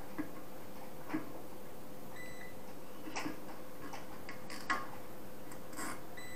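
A few short clicks and knocks of cables and small tools being handled, the loudest a little before the end, over a steady faint hum.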